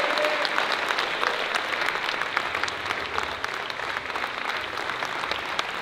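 A crowd applauding, many hands clapping at once, easing off slightly.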